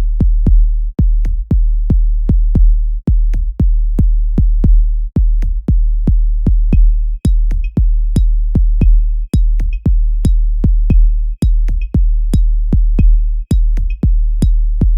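Electronic dance music with a drum-machine beat: a deep, heavy bass under punchy kick strikes several times a second. A lighter, higher ticking percussion joins about seven seconds in.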